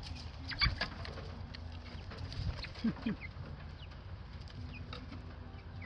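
Young pullets peeping and chirping in short scattered calls while they forage, with a few sharp clicks in the first second and a steady low rumble underneath.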